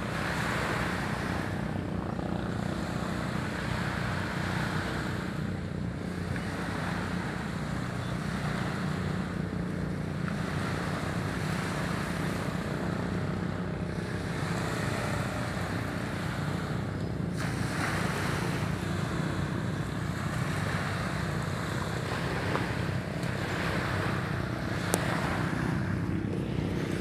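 Small waves washing onto a sandy beach, the wash rising and falling every few seconds, with a steady rumble of wind on the microphone.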